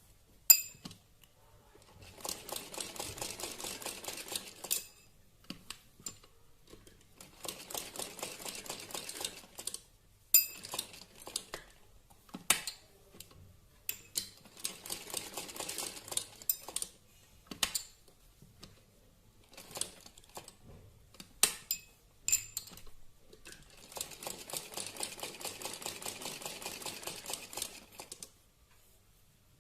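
Simple sewing machine stitching in four short runs of about two to four seconds each, with sharp clicks and knocks between the runs.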